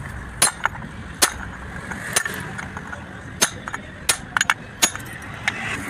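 Hammer striking a steel drift set in the yoke of a truck propeller shaft: about ten sharp metallic blows at an uneven pace, some coming in a quick cluster. This is the work of knocking out the universal joint cross and its bearing cups.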